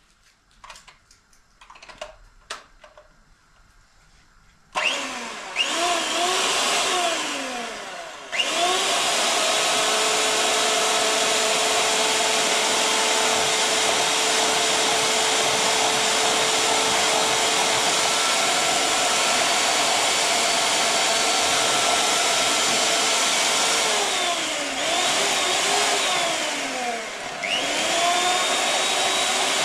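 Handheld electric mixer beating eggs in a small jug. A few light knocks come first; the motor starts about five seconds in and runs steadily, its whine dipping in pitch and recovering briefly a couple of times as the beaters are worked through the eggs.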